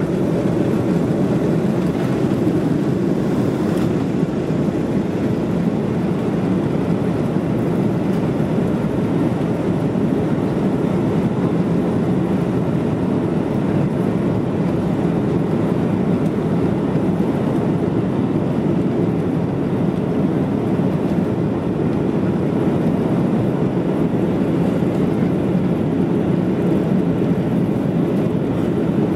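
Steady engine and airflow rumble inside the passenger cabin of an Airbus A330 during its takeoff climb.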